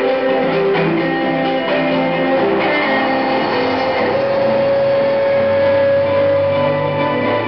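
Live instrumental music led by electric guitar: a run of sustained notes, then a long held note from about four seconds in, with low bass notes coming in near the end.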